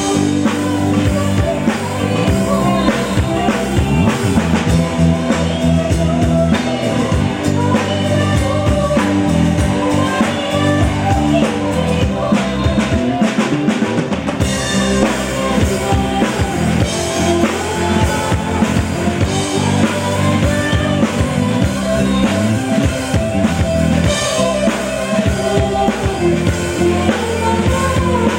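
Live band music with a steady drum-kit beat.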